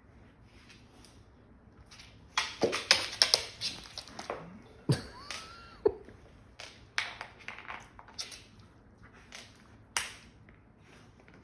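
Two dogs tussling in a tug-of-war over a toy on a hardwood floor: bursts of claw clicks, scrabbling and scuffling start about two seconds in and die down near the end.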